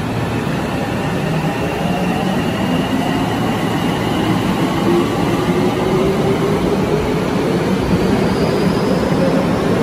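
Tokyo Metro Namboku Line subway train pulling away from the platform: the electric traction motors whine in several rising tones as it accelerates, over a steady rumble of wheels on rail that grows louder.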